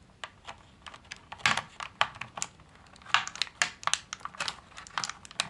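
Clear plastic blister tray crackling and clicking as a small action figure is worked free of it, a quick, irregular run of ticks and crinkles.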